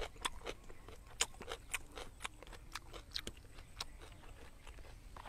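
A person chewing food close to a clip-on microphone: irregular moist mouth clicks and smacks, a few a second.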